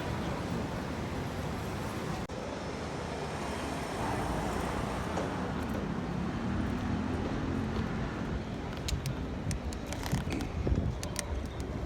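Steady road and traffic noise with wind rumble on the microphone during a bicycle ride, and a few sharp clicks near the end.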